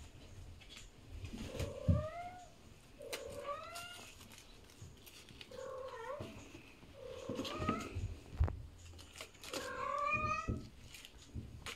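Maine Coon cat meowing about five times, each call short and rising in pitch, with soft knocks from a kitten batting a toy on carpeted stairs between calls.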